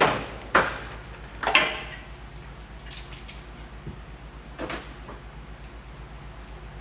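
Saddle creaking and knocking in a dropper seatpost's single-bolt serrated clamp as it is wiggled side to side, seating the clamp's teeth before final torquing. Three sharp creaks in the first second and a half, then a fainter one near five seconds.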